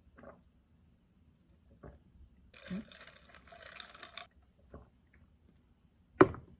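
Small handling sounds of things being moved on a desk: a few soft taps, a rustle lasting about a second and a half in the middle, and a sharper knock near the end.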